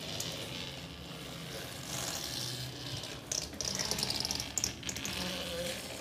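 Hand crank turning a homemade pulley-driven sink sprayer, its mechanism rattling, over the steady rush of tap water spraying in a kitchen sink.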